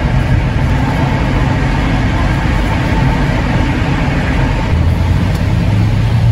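Car engine and tyre road noise heard from inside the cabin while driving through a road tunnel: a steady, loud rumble, with a deeper hum coming in near the end.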